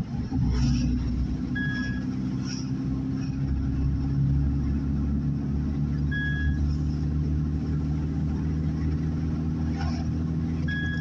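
A car's engine and road noise heard from inside the cabin while driving: a steady low drone that rises slightly a few seconds in. A short high beep sounds three times, about four and a half seconds apart.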